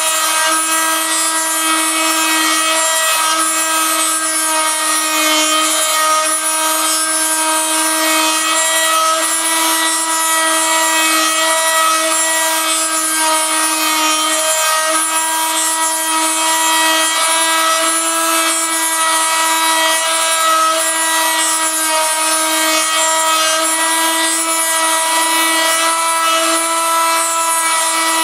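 Rotary tool serving as the spindle of a homemade copy mill, running with a steady high whine while its bit mills a round wooden lure blank, with a continuous rasp of wood being cut.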